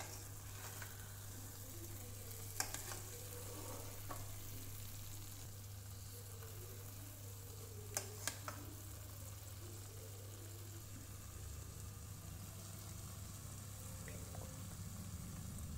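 Egg masala sizzling gently in a non-stick kadai while a spatula stirs and scrapes through it, with light taps of the spatula on the pan about two and a half seconds in and twice around eight seconds in.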